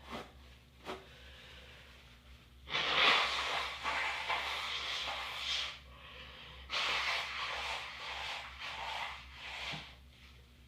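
A person blowing their nose hard into a tissue: two long, wavering blows of about three seconds each, a second apart, after two brief sounds near the start.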